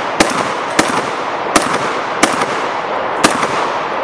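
Shotgun firing five shots in quick succession, roughly one every 0.6 to 1 second, with echoing noise filling the gaps between them, during a timed practical shooting run.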